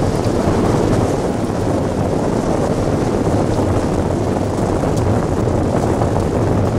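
Steady rush of wind buffeting the microphone, mixed with the rumble of an iceboat's runners sliding over the ice at speed.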